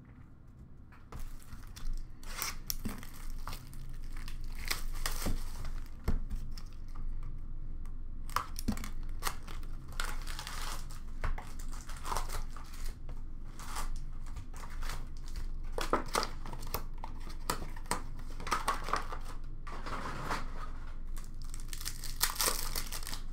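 Upper Deck hockey card packs and their cardboard box being torn open and handled: a long run of irregular crinkling and tearing of pack wrappers and box flaps, starting about a second in.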